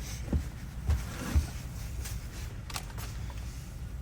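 Objects being handled: three dull knocks in the first second and a half, the last the loudest, then a couple of light clicks, over a steady low rumble.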